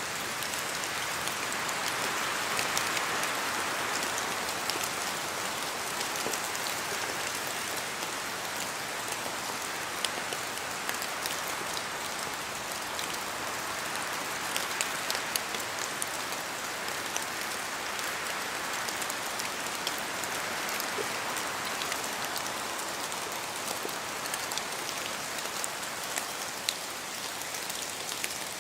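Steady rain in a forest, with many separate drops falling from the trees onto the ground and leaves. The rain hiss swells and eases a few times as the wind gusts through the trees.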